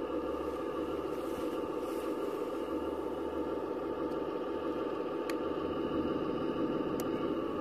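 Electronic sound module of an RC model tank playing a steady diesel engine idle through its small speaker, thin with little bass. Two short clicks come late on.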